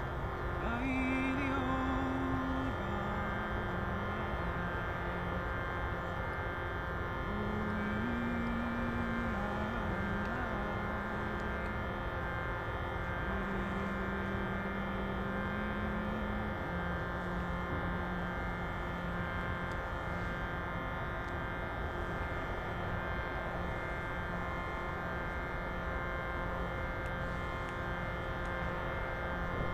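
A steady reedy drone, like a shruti box, sounding throughout, under a voice holding long, slow wordless notes that step between a few low pitches, with a short break now and then.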